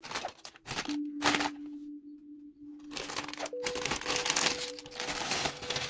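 Plastic LEGO parts bag crinkling and being torn open in short rustling bursts, the loudest about a second in and again around four seconds in, over soft held tones of background music.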